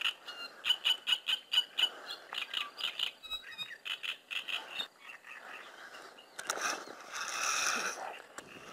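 Frogs croaking in a rapid run of short calls from the reed bed, fading out about halfway through. A short rush of noise follows about two-thirds of the way through.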